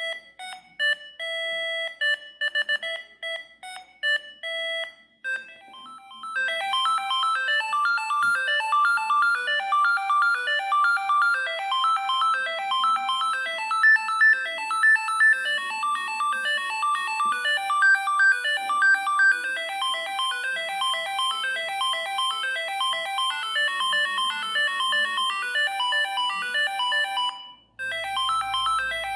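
Siemens S45i mobile phone playing ringtone melodies one after another. A sparse melody of separate notes plays for about five seconds. After a short break, a different, fast and busy melody runs until near the end, when it stops and another tone starts.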